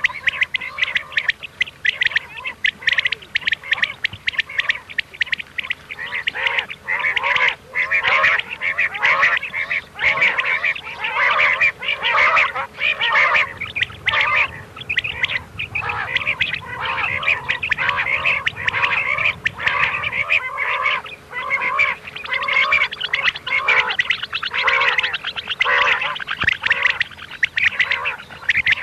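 Common quail (batair) calling, many birds at once: quick repeated notes overlap into a dense, unbroken chorus.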